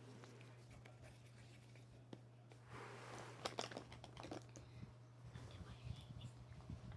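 Makeup items being handled close to the microphone: a soft crinkling rustle starts about three seconds in, followed by a quick run of small clicks and fainter taps, over a low steady hum.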